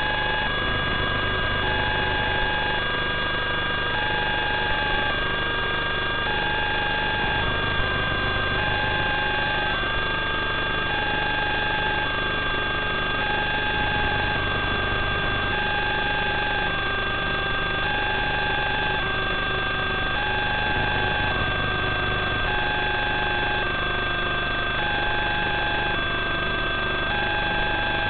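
Steady electronic hiss and hum from an analog FPV video link's audio channel, with fixed whining tones and a faint two-note pattern alternating about every three-quarters of a second.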